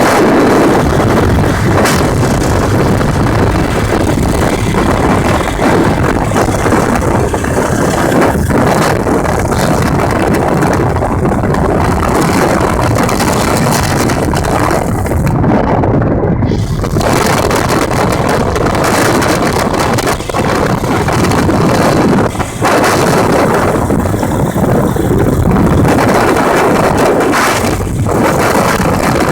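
Gyrocopter engine running loudly and steadily, with wind buffeting the microphone in the open cockpit.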